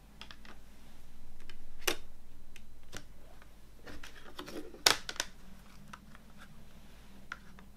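Plastic CD jewel case being handled on a wooden table: a series of sharp plastic clicks and taps with rubbing in between, the loudest click a little before five seconds in, followed quickly by two more.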